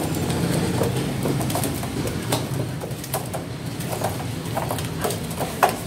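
Freshly slaughtered chickens convulsing in a metal bucket, their wings and feet knocking and scraping against its sides in irregular clatters, the loudest knock near the end. These are the birds' death throes after the cut, heard over a steady low hum.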